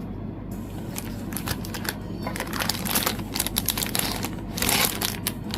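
Packaging being handled and unwrapped: plastic crinkling and rustling with scattered small clicks and taps, loudest about four and a half seconds in.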